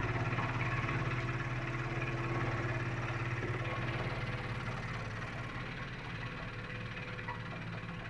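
Toilet water-supply pipes vibrating with a steady low buzz as the float-arm ballcock fill valve shuts off at the end of the tank's refill, strongest over the first few seconds and then fading. The owner puts the rattle down to a cracked fill-valve diaphragm that isn't sealing properly.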